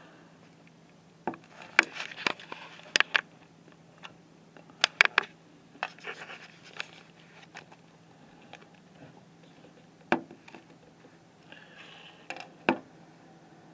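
Handling noise close to the microphone: irregular sharp clicks and short scrapes, a few a second at the busiest, over a faint steady hum.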